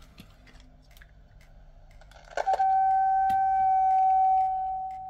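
Acoustic feedback through the wireless microphone system: a steady single-pitch howl starts suddenly about halfway through, stays loud for about two seconds, then drops lower and carries on. The feedback is the sign that the repaired Sennheiser SK300 body pack transmitter is transmitting and working.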